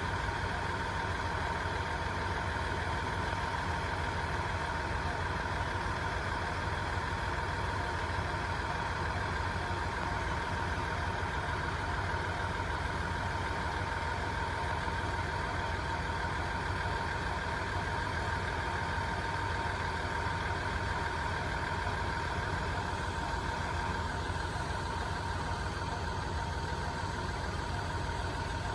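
Railway level-crossing warning bell ringing on and on, with a steady high tone over a steady low hum.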